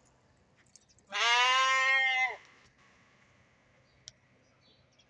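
A young fat-tailed (dumba) sheep bleats once, about a second in, in a single drawn-out call lasting just over a second. A short sharp click follows a couple of seconds later.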